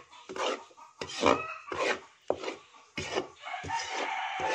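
Spatula scraping and stirring dry flour around a metal pan as it toasts, in repeated short rasping strokes, to keep the browning flour from burning.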